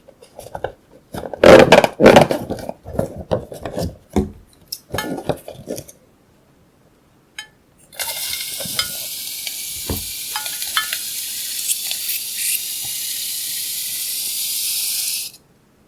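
Slime-making handling sounds: irregular clicks, taps and short crackly squishes, then a steady high hiss for about seven seconds that cuts off suddenly near the end.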